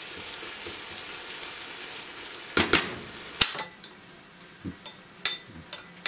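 Onion and tomato masala sizzling in a pot while a wooden spatula stirs it. About two and a half seconds in, a clatter and a sharp click as the glass lid goes on the pot, and the sizzle drops away. A metal spoon then clinks lightly a few times against a small bowl, stirring yogurt.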